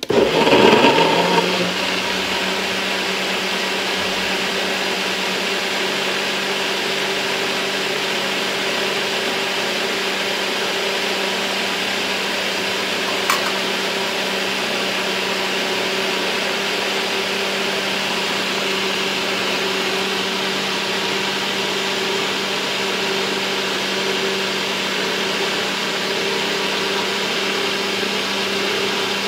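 Countertop blender switched on and blending fruit into a smoothie. The motor spins up with a louder churning burst in the first second or two, then runs steadily with a constant hum. A single brief click comes about halfway through.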